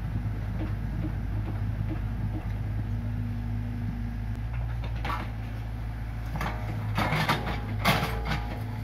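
Komatsu PC45 mini excavator's diesel engine running steadily. From about five seconds in, the bucket scrapes and knocks through soil and debris in the trench, with a few short squeals, loudest near the end.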